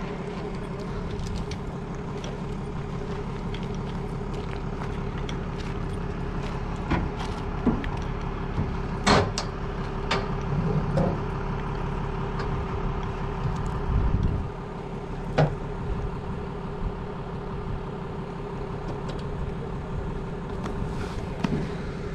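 Fish-stocking truck running at idle, a steady hum, with a few sharp knocks and clicks over it, the loudest about nine seconds in.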